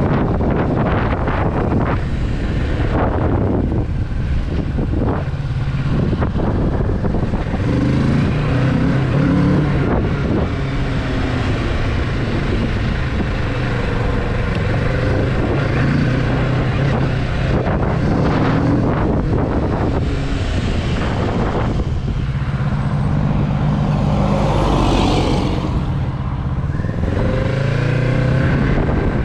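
Kawasaki Z650 motorcycle's parallel-twin engine running as the bike is ridden at low speed, its note rising and falling several times as it accelerates and eases off, climbing again near the end.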